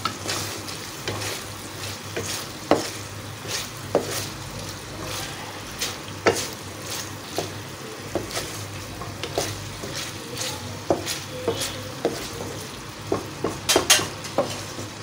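Mutton liver, kidney and heart sizzling in oil in a karahi while a wooden spatula stirs them, scraping and knocking against the pan about once or twice a second, with a quick flurry of knocks near the end.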